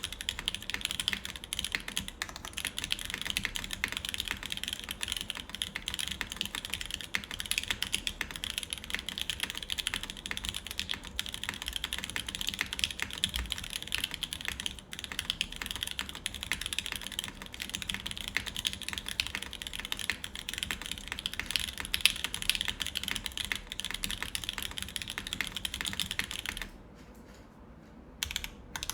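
Mechanical keyboard with lubed Alpaca linear switches, GMK keycaps and a full aluminum plate being typed on fast and continuously, a dense stream of keystrokes. The typing stops for about a second and a half near the end, then picks up again.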